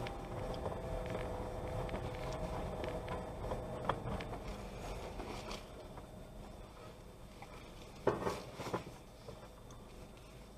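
Low rumble of a car driving on a rutted dirt road, heard from inside the cabin, growing quieter in the second half. There is a sharp knock about four seconds in and a quick cluster of knocks and rattles about eight seconds in.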